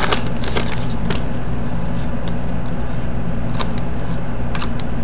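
Hockey cards being flipped and slid against each other, making a scatter of faint clicks and light rustles over a steady low hum.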